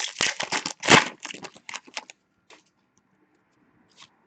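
Upper Deck hockey trading cards being handled by hand: a quick run of crisp clicks and rustles for about two seconds, then a few faint clicks near the end.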